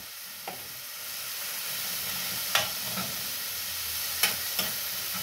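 Termites and chopped tomatoes frying in a wide pan with a steady sizzle, and a metal spoon clicking against the pan a few times.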